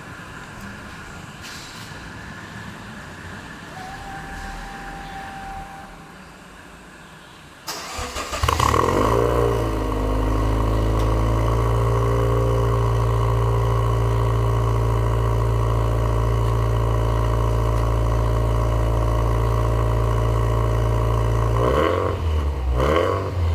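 Car engine starting about a third of the way in: it flares up in revs, then settles to a steady idle. Near the end it is revved a few quick times.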